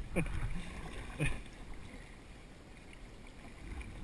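Kayak paddle strokes in river water, two short splashing dips about a second apart near the start, then only a faint wash of water against the hull.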